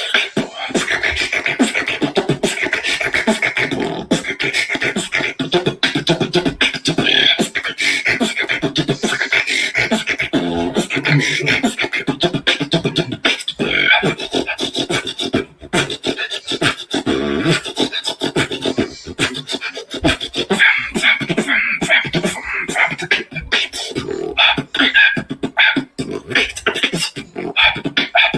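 A person beatboxing: a fast, unbroken stream of mouth-made drum sounds, with sharp clicks and snares laid over pitched vocal tones.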